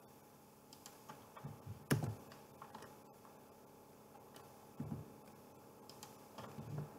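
Scattered faint clicks of a computer keyboard and mouse being used, a few separate clicks with the sharpest about two seconds in.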